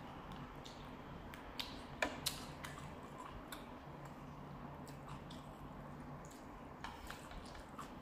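Close-miked eating sounds: slurping rice noodles from a thick beef noodle soup, then chewing with wet mouth clicks and smacks, the two sharpest about two seconds in.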